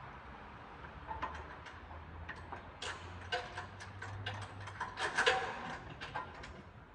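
A run of irregular light clicks and short metallic clinks, loudest about five seconds in, over a faint steady low hum.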